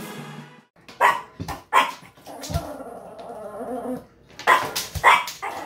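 Small dog barking: a few short, sharp barks in quick succession, a quieter pause, then another quick group of barks.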